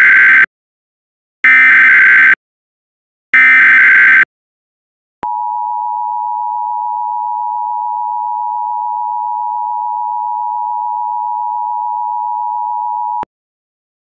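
Emergency Alert System SAME header: three short bursts of shrill digital data tones about a second apart, followed by the two-tone EAS attention signal held steady for about eight seconds.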